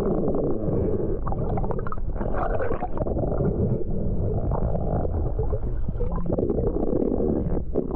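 Muffled underwater rumbling and water movement, heard through a camera's waterproof housing, with scattered clicks and knocks.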